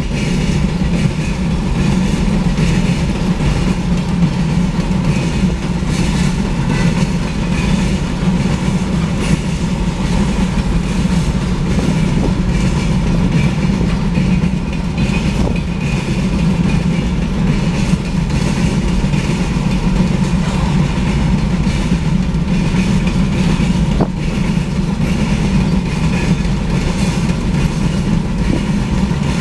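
Freight train cars rolling past: a steady, loud rumble of steel wheels on rail with occasional clicks over the rail joints.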